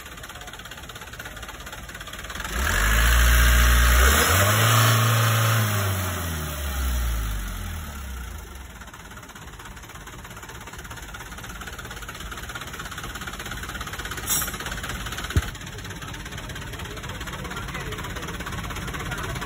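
Mitsubishi car engine being tuned up: it is revved once about two seconds in, the pitch rising, holding and then falling back over several seconds, and it then idles steadily. A single sharp click comes near the end.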